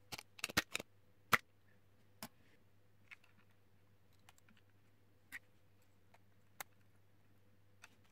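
Light clicks and taps of plastic parts as the opened Nikon SB-900 flash head is handled: a quick cluster of clicks in the first second and a half, then single clicks about once a second.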